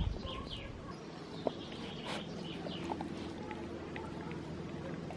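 A dog licking and gnawing a frozen homemade dog-ice treat, with a few short wet clicks and smacks. Birds chirp faintly in the background over a faint steady low hum.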